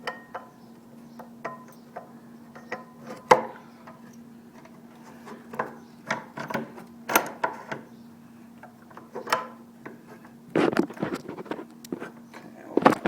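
Motorcycle disc brake caliper with new pads being worked back over the brake rotor: irregular metal clicks, knocks and short scrapes, the sharpest knock about three seconds in and a busier cluster near the end. A steady low hum runs underneath.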